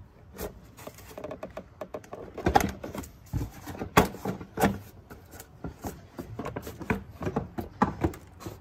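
Plastic air filter housing being wiggled and pulled up out of its rubber mounting grommets: irregular plastic clicks, knocks and scraping, with a few sharper knocks about two and a half and four seconds in.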